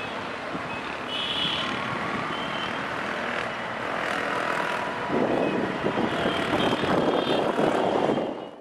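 City road traffic: motorcycles and cars passing, with short horn toots. About five seconds in, a louder vehicle passes, and the sound then cuts off suddenly.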